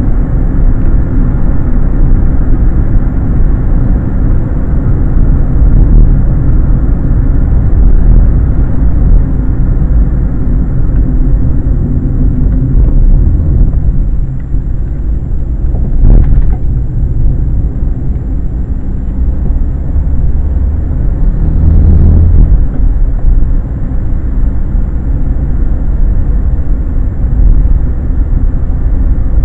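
Steady low rumble of a Fiat Punto's engine and road noise heard from inside the car, easing briefly about 14 seconds in. There is a single sharp knock about 16 seconds in and a short swell in the low rumble about 22 seconds in.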